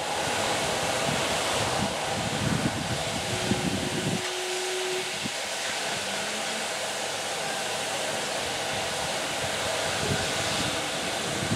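Steam-hauled passenger train running along the track, heard from an open carriage window: a steady rush of wind and rolling noise with an uneven rumble underneath.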